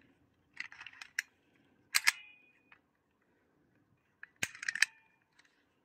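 Metal clicks and clanks from a retractable ratchet strap's ratchet and hooks being handled, in three short bursts; the loudest, about two seconds in, leaves a brief metallic ring.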